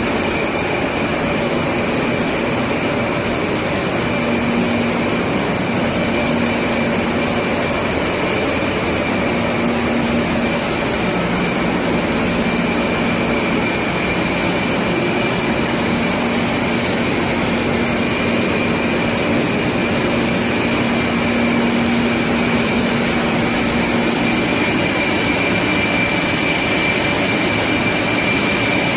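Large Waldrich Siegen heavy-duty roll lathe running, turning a big steel roll with the tool cutting chips: a steady machine noise with a constant high whine. A lower hum comes and goes through the middle.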